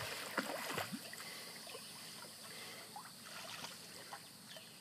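Small child splashing while swimming in a pool, arms and legs churning the water; the splashing is loudest in the first second and grows fainter after.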